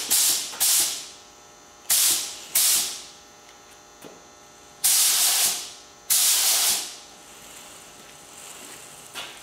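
Compressed air hissing from a paint spray gun in six short bursts as its trigger is pulled. The last two bursts last about a second each.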